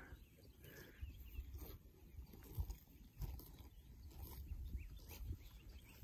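Cattle grazing close by: faint, irregular tearing and munching of pasture grass over a low, uneven rumble.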